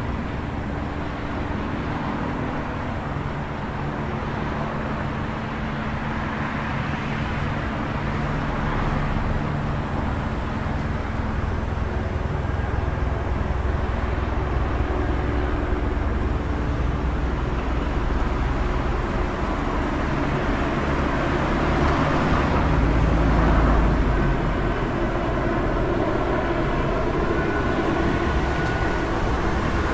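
City traffic at night: a steady wash of engines and tyre noise with a low rumble, swelling as a heavier vehicle passes about two-thirds of the way through.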